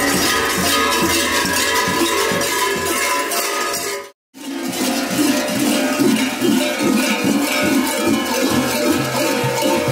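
Many large metal bells hung from kukeri mummers' belts clang continuously and unevenly as the procession walks, the sound briefly cutting out about four seconds in.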